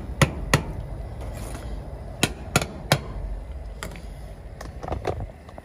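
A series of sharp knocks: two near the start, three evenly spaced about a third of a second apart a little after two seconds in, then lighter taps near the end, over a steady low hum.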